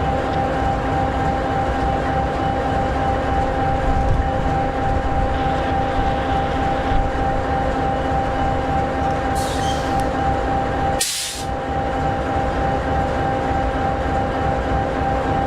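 EMD 16-710G3B two-stroke, turbocharged sixteen-cylinder diesel of an SD60E locomotive idling steadily, a low rumble with a constant whine over it. Two brief hisses of air break in, about nine and a half and eleven seconds in.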